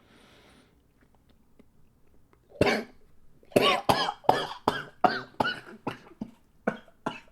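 A man coughing in a rapid series of short, loud coughs, starting about two and a half seconds in after a quiet spell. He is reacting to a foul-tasting bite of dried fish snack.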